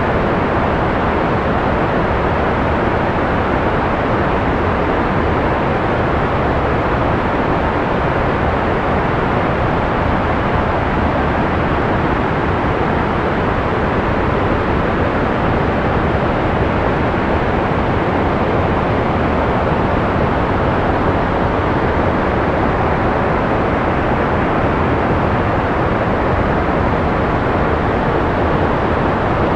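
Continuous white noise: a steady, even hiss that never changes, with its treble rolled off so it sounds soft and rushing rather than bright.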